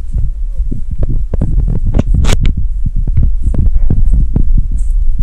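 Strong wind rumble on the microphone of a camera carried on horseback, broken by many irregular knocks and thumps from the rider's gear jostling as the horse walks, with a sharp crackle about two seconds in.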